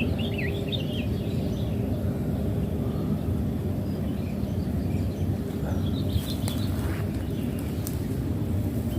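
Outdoor ambience: a steady low rumble, with small birds chirping faintly during the first second and again about six seconds in.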